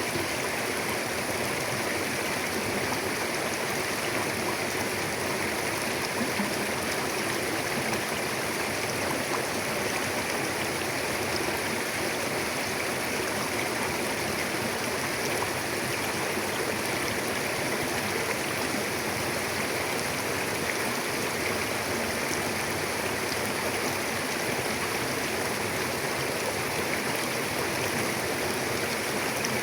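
Mountain river flowing over rocks: a steady rush and babble of running water.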